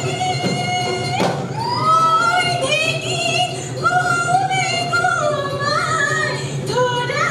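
Girls singing a Bihu song in a gliding melody over instrumental accompaniment, with a sharp percussive hit about a second in.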